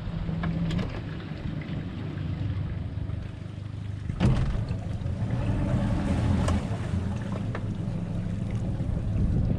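Small boat's outboard motor running slowly, a steady low hum with wind and water noise over it, and a single knock about four seconds in.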